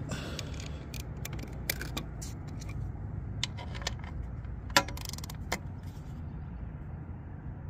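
Hand ratchet on a motorcycle's oil drain bolt giving a few scattered, separate clicks as the bolt is checked for tightness, with the sharpest click about five seconds in. A steady low hum runs underneath.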